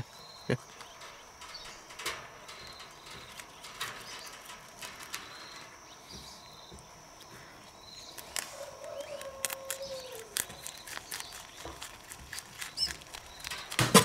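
Rabbits chewing leafy greens: faint, scattered crunching clicks that grow denser in the last few seconds. A short high chirp repeats every second or two in the background, and a drawn-out call falling in pitch sounds about eight seconds in.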